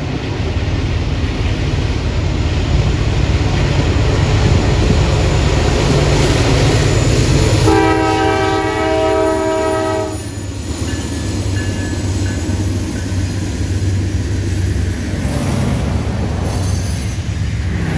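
Norfolk Southern coal train led by GE Dash 9 diesel locomotives passing under power, engines running with a steady low rumble. About eight seconds in, the locomotive horn sounds once for about two and a half seconds as a chord of several tones. A truck drives past close by near the end.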